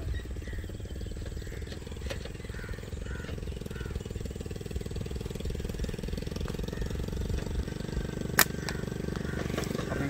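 An engine running steadily with an even low hum. A few faint high chirps come in the first few seconds, and one sharp snap sounds about eight and a half seconds in, louder than anything else.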